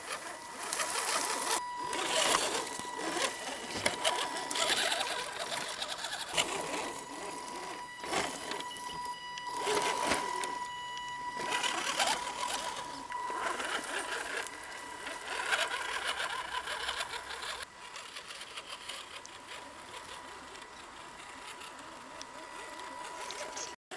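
Small electric motor and gear drive of a 1/10-scale Axial SCX10 RC crawler truck whining steadily as it crawls, with crackling and rustling as its tyres push through leaves, twigs and brush. The crackling is busiest in the first two-thirds and eases off near the end.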